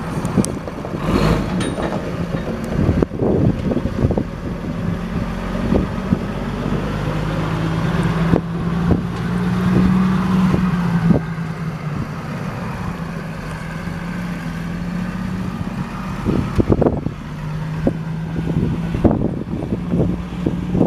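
Six-cylinder turbo diesel engine of a 1989 International F2674 truck running steadily, with wind buffeting the microphone.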